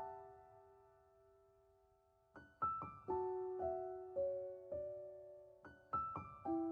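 Background music: a gentle solo piano plays short phrases of single notes that ring and fade away, with a brief pause about a second in.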